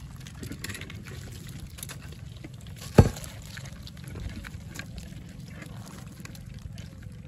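A wet heap of bag-net catch, live crabs among small fish, snail shells and leaves, crackling with faint scattered clicks and ticks over a low steady rumble. A single sharp knock stands out about three seconds in.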